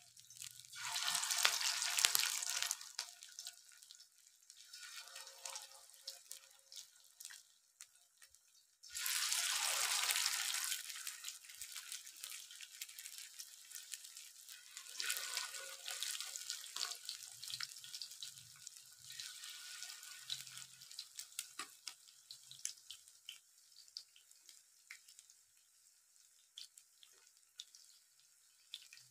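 Masala-coated fish pieces sizzling and spitting in hot ghee on a flat tawa. The sizzle surges loudly about a second in and again about nine seconds in as fresh pieces go into the fat, then settles to a crackle with scattered pops.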